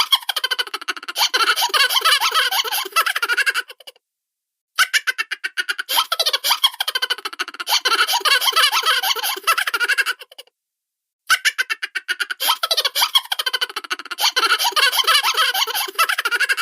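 High-pitched cartoon-style laughter, a fast run of giggling chuckles. The same laugh plays three times, each about six seconds long with a brief silence in between.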